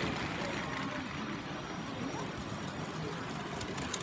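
Lego trains running on plastic track: a steady rolling whir over a hall-wide background hum, with a few sharp clicks near the end.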